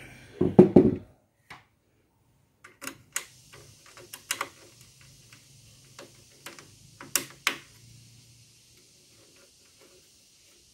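Parts of a Brother DCP-1510 laser printer being handled and fitted back together by hand: a dull knock about half a second in, then a string of sharp plastic clicks, loudest around seven seconds in.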